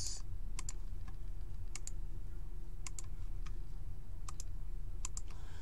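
Scattered clicks of computer keys, about half a dozen, some in quick pairs, over a low steady hum.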